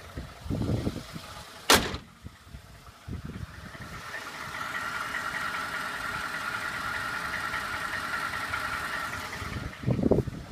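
2012 Ford F-150's 5.0 V8 engine running. There is a single sharp clack a little under two seconds in, and a steady whine from about four seconds in until near the end. The engine is the one the owner reports as knocking.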